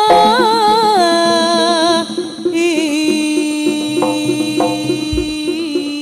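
Javanese jaranan ensemble music: a held, wavering lead melody over a steady beat of drum and gong-chime strokes, with a brief break in the melody about two seconds in.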